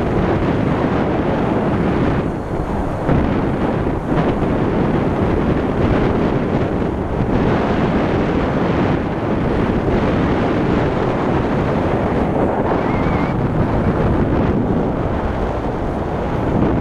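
Strong wind buffeting the microphone: a loud, steady rumble of wind noise.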